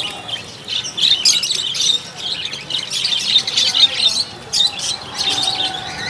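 Many caged birds chirping and calling at once: a dense, unbroken chatter of quick high calls.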